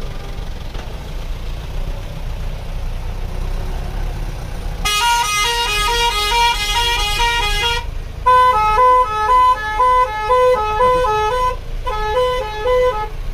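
Steady low rumble of vehicle engines in a stopped traffic queue. About five seconds in, a loud musical horn starts playing a repeating tune of alternating notes. It breaks off for a moment near eight seconds, then plays on in short phrases.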